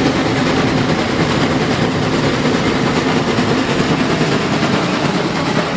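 A steam locomotive and its passenger cars running past on the rails, a steady loud rumble with no break.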